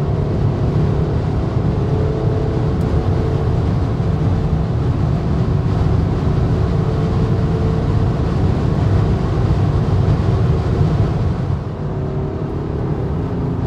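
Cabin noise inside a BMW X6 xDrive40d cruising at autobahn speed: a steady roar of wind and tyres with a low drone underneath. It eases a little near the end.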